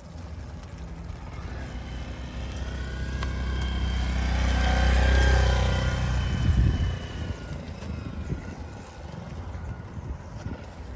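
A motor vehicle drives past, its engine rumble growing louder to a peak about five seconds in and fading away by about seven seconds.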